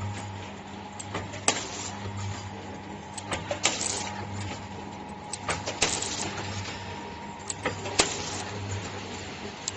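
Laminated-film milk pouch packing machine running: a steady hum under a sharp clack about every two seconds, some clacks trailed by a short hiss, with lighter clicks in between.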